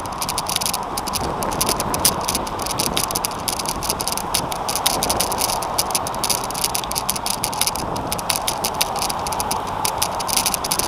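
A velomobile rolling along the road: a steady rushing hum from its tyres and drivetrain, with the shell rattling in rapid, irregular clicks.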